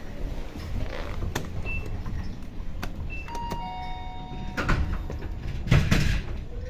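Hitachi passenger elevator: two short high beeps about a second and a half apart, its button-confirmation tones, then a falling two-note ding-dong arrival chime.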